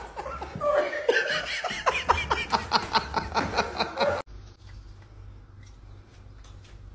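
A person laughing hard, in rapid repeated bursts, which cuts off abruptly about four seconds in, leaving a much quieter stretch with only a faint low hum.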